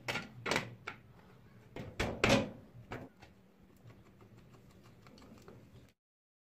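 Metal scooter deck plate knocking and clattering against the steel frame as it is set in place, the loudest knock about two seconds in. After that come faint ticks of a screw being turned in by hand with a screwdriver, and the sound cuts off shortly before the end.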